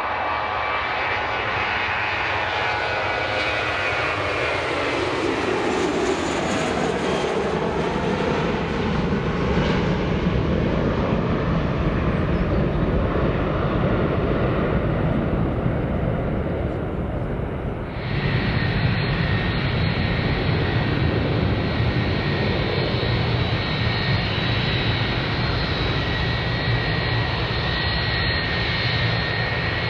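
Jet airliner engines at takeoff thrust. The whine drops steadily in pitch as the aircraft passes. About 18 s in, it switches abruptly to another jet's steady high whine over a deep rumble.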